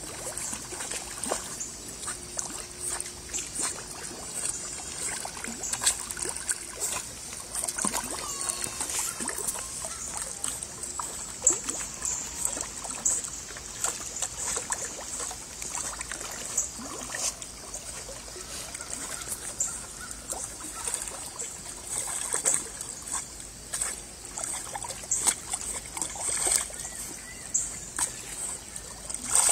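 Dog swimming: small irregular splashes and water trickling and lapping as it paddles.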